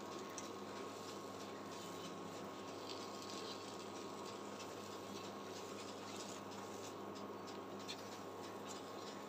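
A silicone spatula stirs and scrapes a thick carrot and semolina halwa around a nonstick pan, giving faint, irregular scraping and squishing sounds. A steady low hum with a thin whine runs underneath.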